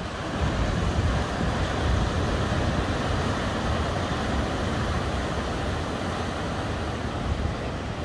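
Ocean surf breaking and washing up the shore: a steady rush with a deep rumble, swelling about half a second in.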